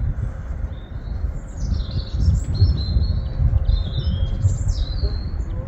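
Small birds chirping and calling, several short notes and a few falling calls. Under them is a loud, uneven low rumble.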